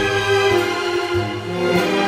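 Orchestral background music with bowed strings, sustained notes changing every second or so.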